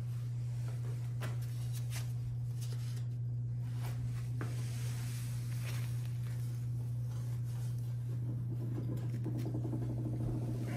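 Kiln shelf and posts lifted out of an electric kiln by hand: a few faint clicks and light knocks, with a soft scrape late on as the shelf comes out. A steady low hum runs underneath throughout and is louder than the handling.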